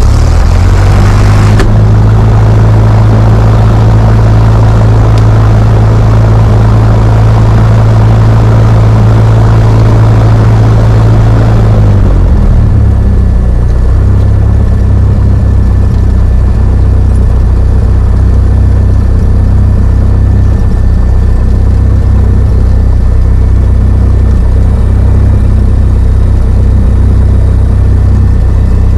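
Light single-engine plane's piston engine and propeller running just after start-up, loud inside the cockpit. About twelve seconds in, the engine note drops to a lower, steady pitch.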